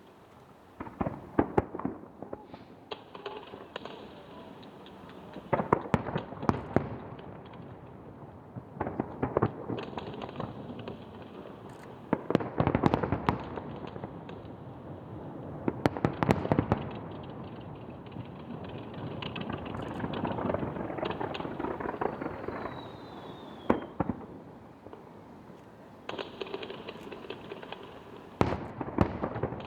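Computer-fired starmine fireworks display: waves of shells bursting in quick succession, with crackling between the clusters and a brief falling whistle about two-thirds of the way through.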